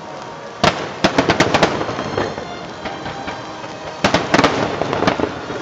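Aerial fireworks shells bursting: a single bang about half a second in, a quick run of bangs about a second in, and another run about four seconds in, over a continuous din.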